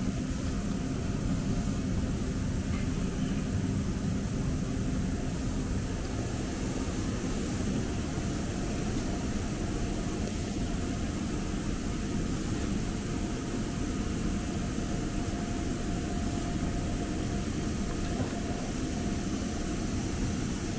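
Muni N Judah light rail car running, a steady low rumble and hiss heard from inside the car, with a faint steady whine for several seconds in the second half.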